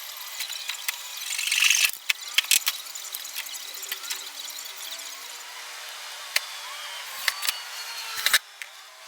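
Workshop work sounds: a short rushing hiss, then scattered sharp clicks and knocks of tools on wood and metal, with a louder pair of knocks near the end.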